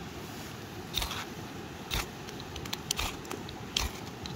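Ferro rod (fire steel) scraped hard with a striker about four times, a second or so apart, throwing sparks into a twine tinder bundle until it catches.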